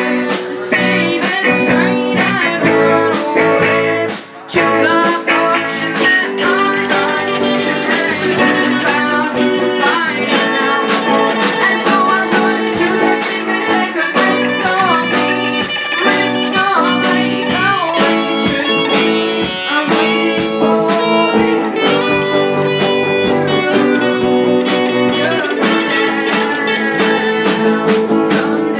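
Rock band playing an instrumental passage, guitar to the fore over a steady drum beat; the music drops back briefly about four seconds in.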